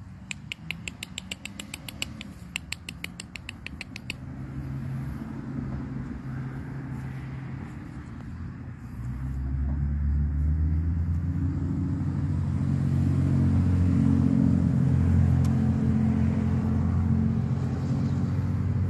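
An engine running steadily, growing much louder about nine seconds in and then holding. It is preceded by a rapid run of high ticking, about ten ticks a second, that stops about four seconds in.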